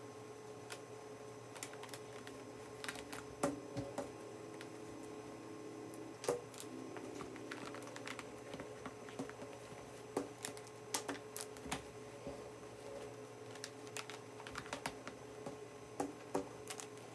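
Irregular clicks and snaps of rubber bands being stretched and wound around a scrunched cotton t-shirt, with soft handling of the fabric, over a faint steady hum.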